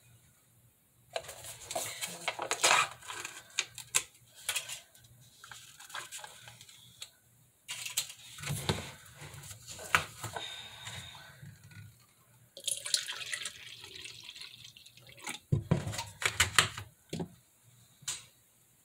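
Irregular kitchen handling sounds: short knocks and clatter of containers, with stretches of liquid running or being poured.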